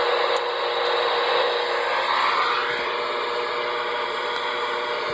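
Steady receiver static hissing from a CB test radio's speaker while no signal is coming through, with a faint steady tone under it.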